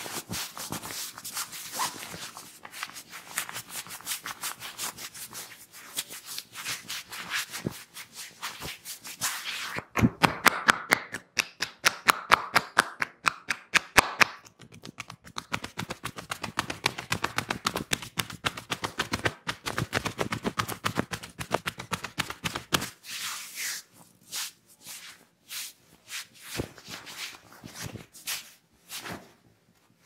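Hands massaging the shoulders, neck and back through a shirt, with scratchy rubbing of palms on the fabric and fast rhythmic tapping strokes. A louder flurry of quick sharp slaps comes about ten seconds in and runs for about four seconds. Near the end the strikes are sparser and farther apart.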